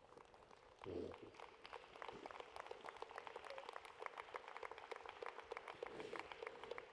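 Audience applauding: many hands clapping at once, swelling about a second in and then holding steady.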